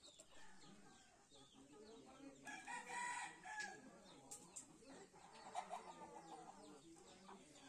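A rooster crows once, starting about two and a half seconds in and lasting just over a second, with a shorter, softer fowl call a little later.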